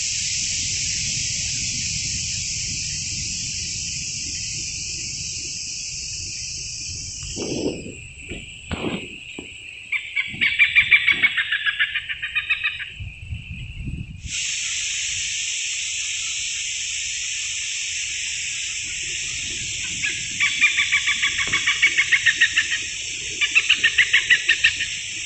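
A bird calling in fast runs of repeated notes, about five a second: once around ten seconds in, and twice more in the last five seconds. Under it runs a steady, shrill high drone that drops out for several seconds in the middle.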